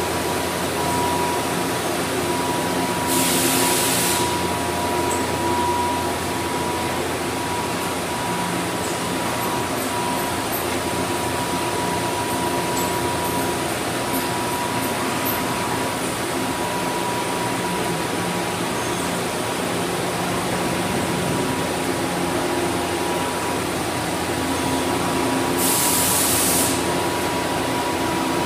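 Powered-up Doosan Puma TT1800SY CNC lathe humming steadily at idle, with a constant whine. Two short hissing bursts of air come a few seconds in and again near the end.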